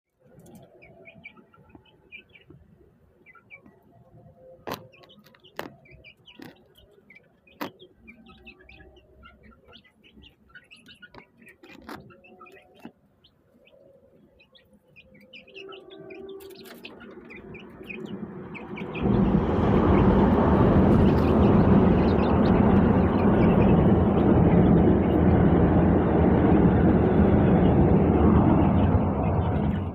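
Chicks peeping in short high chirps, with a few sharp knocks. About two-thirds of the way through, a loud steady rushing noise starts and covers them until near the end.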